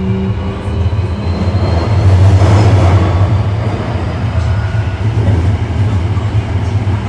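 Osaka Metro 1300 series subway train heard from inside the car: the whine of its Toyo IGBT VVVF inverter and traction motors, several tones rising slightly, fades out about a second in. A loud, steady low rumble of the wheels running on the rails carries on, swelling around two to three seconds in.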